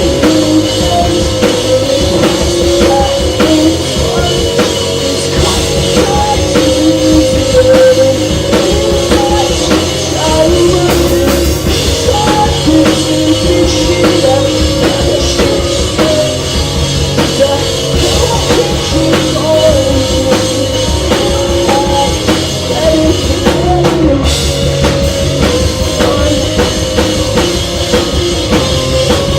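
A rock band playing loud and live: a drum kit keeps a steady beat under guitars and bass, with singing.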